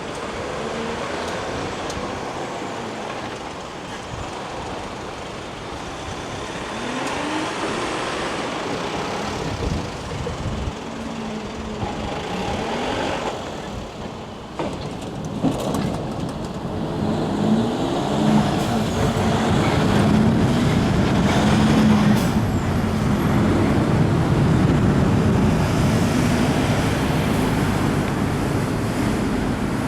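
Road traffic of heavy trucks and cars crossing a level crossing, their engines rising and falling in pitch as they pull away one after another. The traffic grows louder about two-thirds of the way through.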